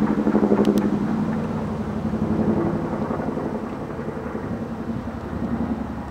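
Boeing CH-47 Chinook tandem-rotor helicopter flying close by, its rotor blades beating in a fast, even pulse over a steady engine drone. Loudest in the first second, then slowly fading.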